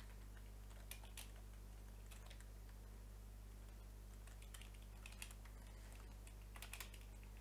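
Computer keyboard keystrokes, a few sparse taps with a small cluster in the second half, over a steady low electrical hum.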